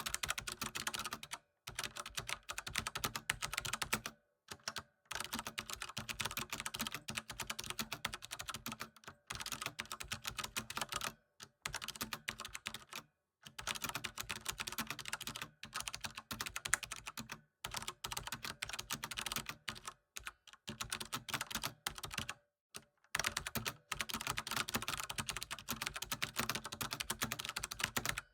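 Typing on a computer keyboard: rapid, continuous key clicks in runs of a few seconds, broken by brief pauses.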